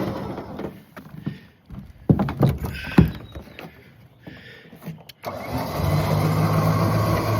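Winch motor hauling a log up the trailer ramp on its cable: it runs steadily, stops under a second in, a few knocks and clunks follow, and it starts again abruptly about five seconds in and pulls steadily.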